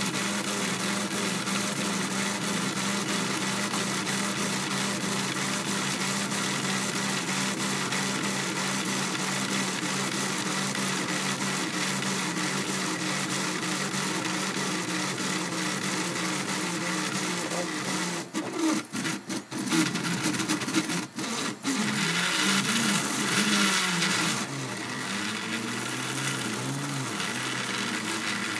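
3D printer at work: its cooling fans run with a steady hum and hiss while the stepper motors whir as the print head moves. About two-thirds of the way in, the motor tones start rising and falling rapidly, with a few brief dips in the sound.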